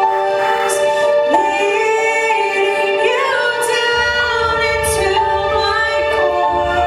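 Music with a woman singing long held notes over sustained chords.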